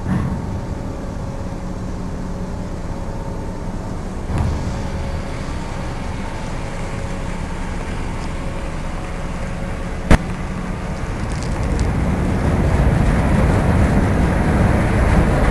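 Cargo ship's engines and machinery running with a steady low hum as it moves slowly past, growing louder over the last few seconds. One sharp click comes about ten seconds in.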